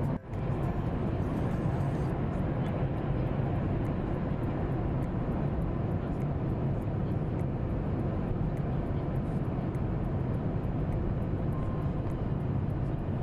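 Boeing 737 MAX jet engines and airflow: a steady, even rumbling hiss that does not change in pitch, broken by a brief dropout just after the start.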